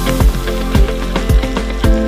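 Background music with a steady beat: a kick drum about twice a second under sustained notes.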